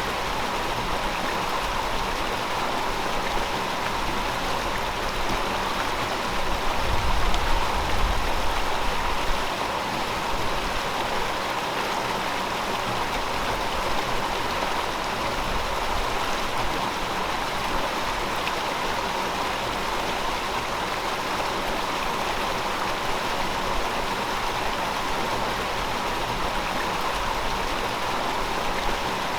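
River water flowing steadily, a continuous even rush of running water, with a brief low rumble swelling about a quarter of the way through.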